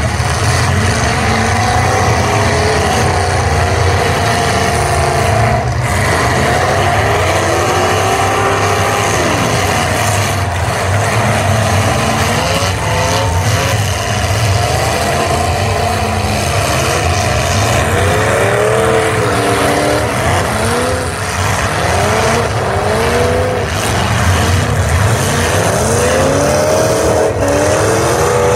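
Several demolition derby cars' engines revving up and down over one another as they push and ram, with a few sharp crash impacts among them.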